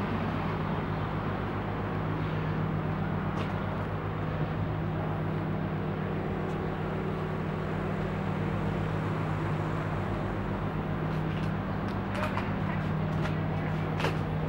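Steady low hum of an idling engine, with a few faint clicks near the end.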